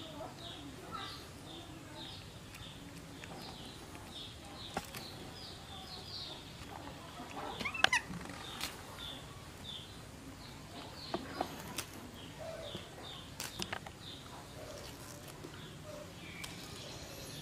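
High-pitched animal chirps, short and falling, about two a second. A louder squeal comes about eight seconds in, with a few light clicks and leaf rustles.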